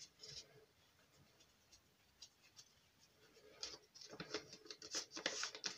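Paper rustling and crinkling as a small folded envelope of coffee-dyed book paper is handled and its glued flap pressed down. It is faint at first, with a run of louder crinkles from about halfway on.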